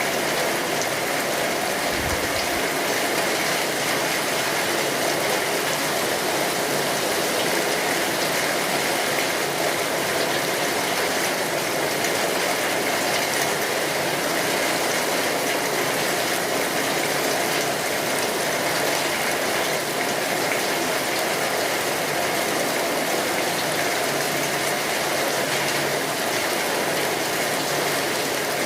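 Steady rain on a tin roof: a dense, even patter of many fine drop ticks. A short low thud comes about two seconds in.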